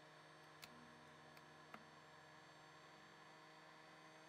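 Near silence: a faint steady electrical hum, with three faint small clicks in the first two seconds.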